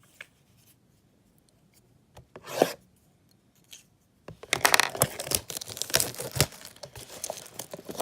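Packaging being torn open on a trading-card box: a short rip about two and a half seconds in, then from about four seconds in a continuous run of crackly tearing and crinkling.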